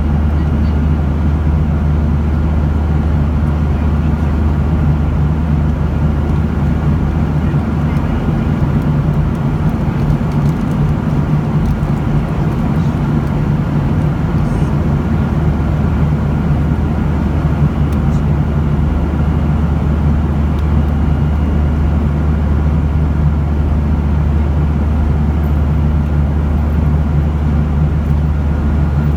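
Steady cabin noise of a jet airliner in flight: a constant low drone of the turbofan engines and airflow, heard from inside the cabin.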